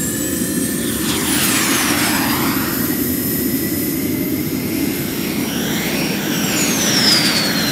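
Logo-intro sound effect: a loud, steady rumbling roar with high whooshing sweeps that fall in pitch, one about a second in and another near the end.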